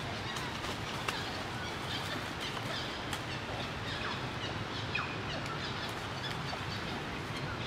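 Short, high animal chirps and squeaks scattered over a steady outdoor hiss.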